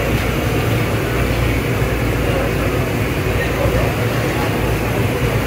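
Hot oil sizzling and bubbling steadily in a large karahi as battered pieces deep-fry, over a low steady rumble.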